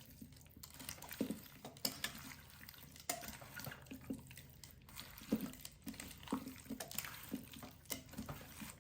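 Oiled chicken thighs, chopped onion and baby potatoes being tossed together in a slow cooker's crock: irregular soft knocks and clicks with wet, squishing sounds.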